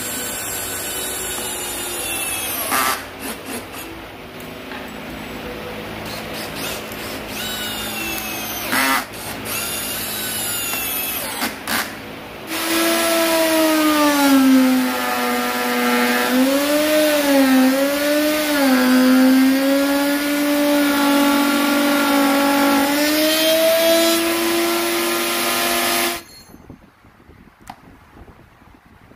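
A cordless drill driving screws in short stop-start runs, its whine rising and falling with the trigger, with a few knocks between. Then a table-mounted router starts and runs with a loud, steady whine that sags and wavers in pitch for a few seconds in the middle, and cuts off abruptly near the end.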